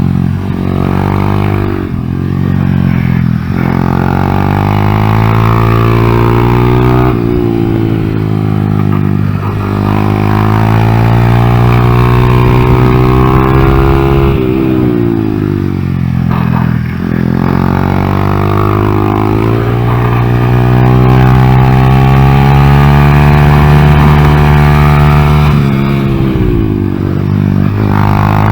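Honda Grom's 125 cc single-cylinder engine revving hard under a ride, its pitch climbing steadily and then falling away sharply several times as the throttle is shut.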